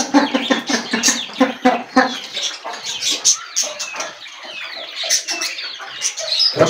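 A chicken clucking in quick repeated notes for about the first two seconds, then small caged birds chirping and twittering in short high notes.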